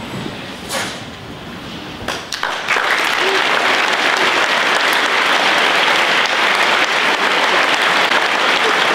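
A large audience of students applauding, starting about two and a half seconds in and then holding steady. A few sharp knocks come just before it.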